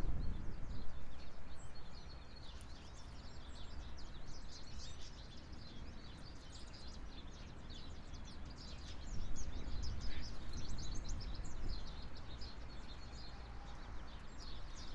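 Many short, high bird chirps in dense twittering throughout, over a low rumble that swells near the start and again about two-thirds of the way through.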